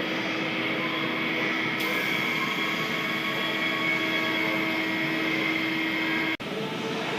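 Welding machine running with a steady mechanical hum and several held whining tones. The sound cuts out sharply near the end, then resumes.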